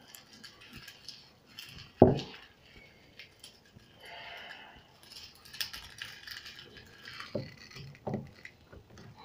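Light clicks and rattles of a small plastic toy and its accessory being handled, with one thump about two seconds in.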